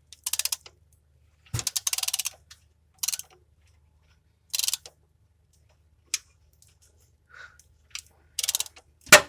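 A ratchet wrench clicking in about six short bursts as the engine is turned over by hand. A single sharp knock comes near the end.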